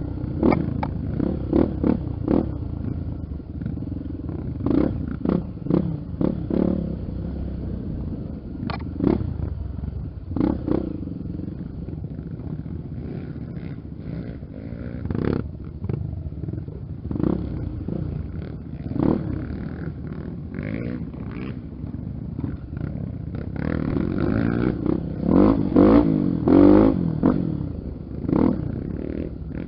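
Honda XR Tornado's single-cylinder four-stroke engine running on a dirt trail, its pitch rising and falling with the throttle toward the end, amid frequent short knocks and thumps.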